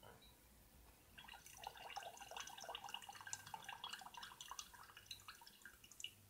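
Faint trickling and dripping of lentil soaking water draining off a carton past a held spoon into a glass jar. It is a busy run of small drips starting about a second in.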